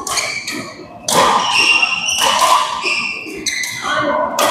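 Badminton rally: several sharp racket strikes on the shuttlecock, the loudest about a second in and near the end, with high squeaks of shoes on the court between them, echoing in a large hall.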